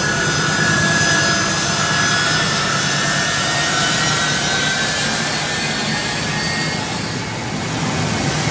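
Turbofan jet engines of a U.S. Air Force C-17 Globemaster III running loudly as the transport rolls along the ground: a steady rushing jet noise with a high turbine whine that fades partway through.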